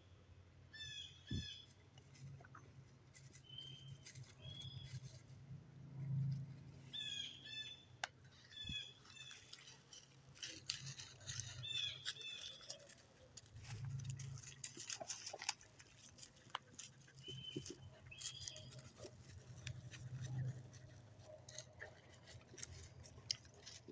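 Songbirds chirping in short repeated phrases, over footsteps crunching through dry leaf litter and a few dull low thuds.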